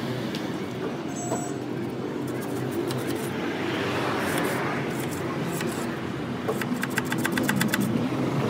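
A thin metal rod ticking rapidly over the fins of a small car radiator core, a quick even run of clicks in the last couple of seconds. A steady engine hum runs beneath it.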